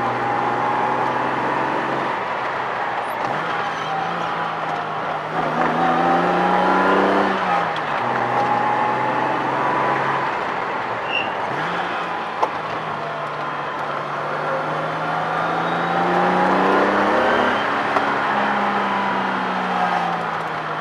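1978 Datsun 280Z's straight-six engine heard from inside the cabin, pulling under load. Its pitch climbs, drops sharply about eight seconds in as it changes gear, then rises and falls again with the throttle. Road noise runs underneath.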